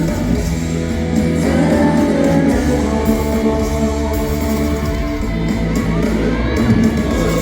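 Live pop-rock band music with electric guitar and a male singer, amplified through a large hall's sound system.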